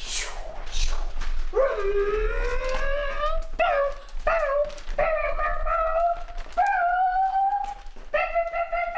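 Dog howling: after two short breathy huffs, a string of long rising howls, the first about two seconds long, then shorter ones that break off and start again.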